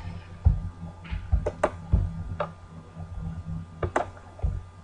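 A run of sharp, irregular clicks and taps, about ten in all with several bunched together around the middle, from working a computer mouse and keyboard to exit the slideshow, over a low steady hum.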